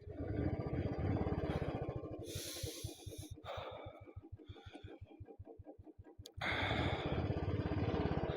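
Royal Enfield Classic 350's single-cylinder engine idling with an even, rapid thud, about seven beats a second, the bike that keeps stalling at high altitude. A louder rushing noise lies over it in the first two seconds and again near the end.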